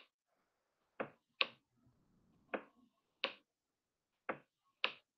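Six sharp clicks, coming roughly in pairs about half a second apart, as digits are handwritten on a computer whiteboard.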